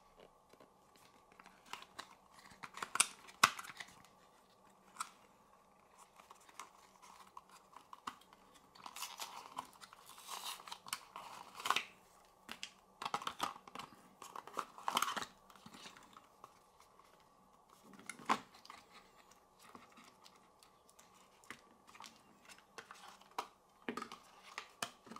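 Cardboard packaging and paper inserts being handled as earphones are lifted out of a fold-open card tray: irregular rustles, scrapes and small clicks, loudest around three seconds in and through the middle, over a faint steady hum.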